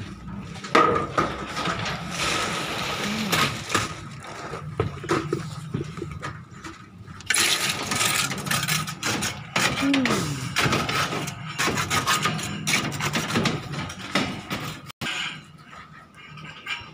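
Concrete-pouring work: buckets of wet concrete handled and a trowel scraping concrete into rebar mesh, with repeated scrapes and knocks over a steady low engine hum.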